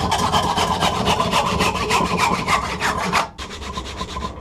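Hand saw cutting through a wooden bar with fast, even back-and-forth strokes. A little over three seconds in, the sawing stops and softer rubbing strokes on the wood follow.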